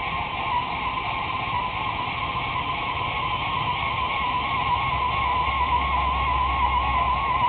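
Battery-powered PlayTime Mysta Bot toy robot walking: its small electric motor and plastic gears run with a steady whirr and a thin whine that wobbles up and down in pitch.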